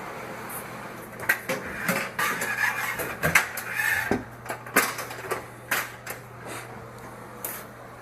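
A run of irregular knocks and clicks, with scraping and rustling between them: objects being handled and set down.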